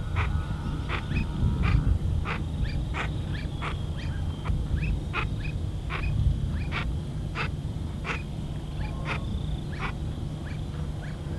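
A series of short, sharp clicking calls, roughly two a second at uneven spacing, with a few faint chirps between them and a steady low rumble beneath.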